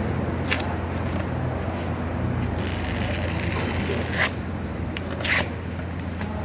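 Backing paper being peeled off adhesive foam tape during duct assembly: a few short ripping and scraping sounds over a steady low hum.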